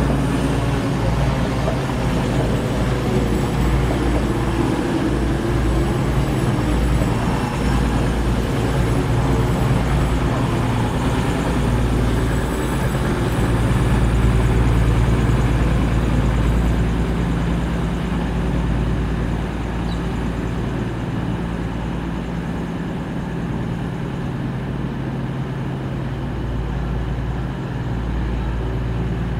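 Diesel train engine running with a steady low drone, a little louder about halfway through, then easing off slightly.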